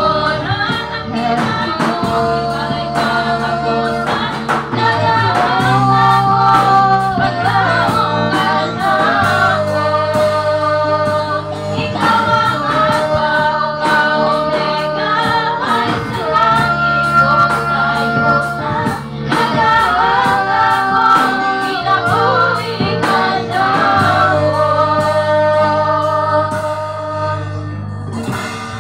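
A youth choir of mostly girls singing a gospel song together, with a steady beat from the instrumental accompaniment underneath.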